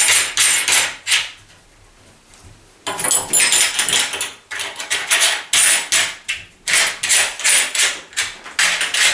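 Metal screw-on rose covers of a lever door handle being twisted back onto their threads by hand: repeated bursts of metallic clicking and scraping, one per turn of the hand, with a short pause near the start.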